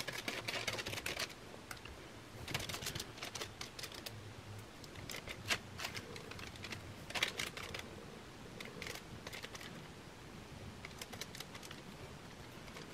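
Soft, scattered scratching and dabbing of a small paintbrush working wet glue into a paper napkin cut-out laid on a plastic cereal-box liner, in short irregular strokes.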